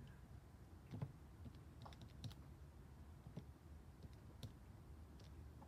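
Faint, irregular clicks of a Casio pocket calculator's plastic keys being pressed one at a time, over a low steady hum.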